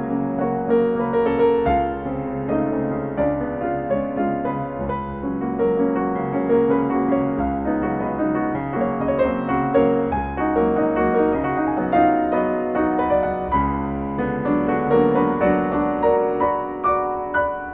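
Piano music: a steady flow of notes and chords.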